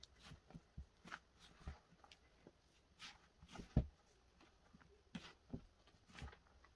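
Hands gathering flour and liquid into pastry dough: faint, irregular soft knocks and rustling as the mix is pressed together, with one louder thump a little past the middle.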